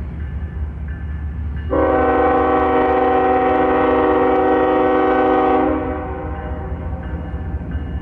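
Diesel freight locomotive's multi-chime air horn sounding one steady blast of about four seconds, starting about two seconds in. A low, steady rumble runs underneath.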